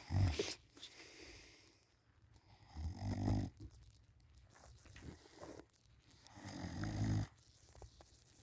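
A person snoring loudly in deep sleep while lying on their back: three low, rattling snores about three and a half seconds apart, with soft breathing between them.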